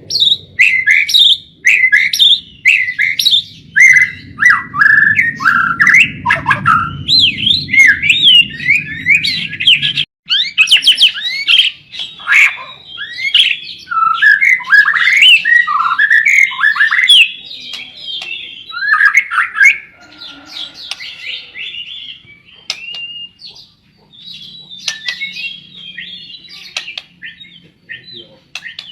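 White-rumped shama (murai batu) singing a long, varied song of quick whistles, slurred notes and rattling phrases. The song is dense and loud for the first twenty seconds or so, then becomes sparser and quieter. A low rumble runs under the first ten seconds.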